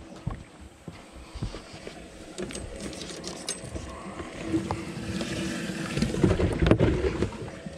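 Knocks, clicks and rustling of people moving about and handling gear on a bass boat's carpeted deck, over a steady low hum that grows stronger in the second half.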